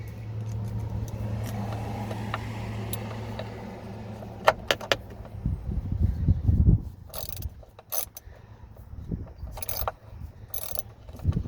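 Ratchet wrench with a deep socket on an extension clicking in short runs as it unscrews a door jamb switch, along with handling knocks and a low rumble.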